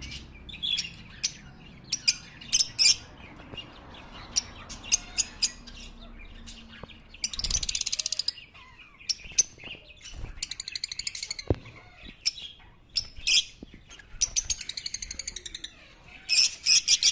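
Lovebirds chirping: many sharp, high chirps, with a burst of rapid chattering about halfway through and another near the end.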